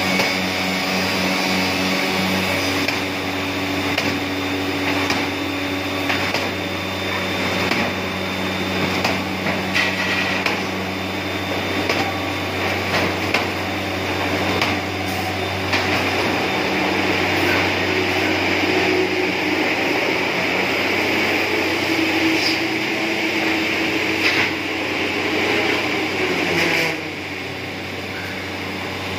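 Woodworking finger-jointing machinery running: a steady motor hum and whir with scattered knocks and clatter of wood pieces moving through the line. The sound drops a little in level near the end.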